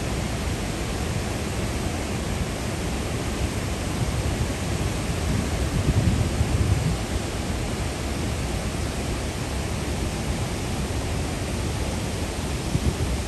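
Steady rushing of river water pouring over a low concrete dam spillway and churning through rocky rapids below it.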